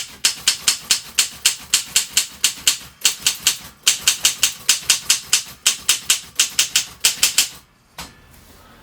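Restored 1950 Mercedes office typewriter being typed on quickly: a brisk run of type bars striking the platen, about six sharp clacks a second, with two brief pauses. The platen's rubber has hardened with age. The typing stops near the end.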